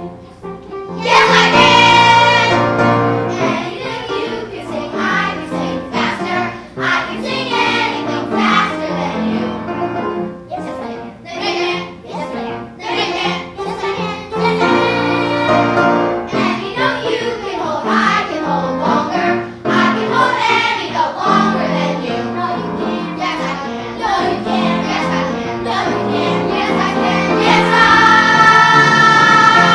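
Group of children singing a song with instrumental accompaniment, starting loud about a second in and ending on long held notes.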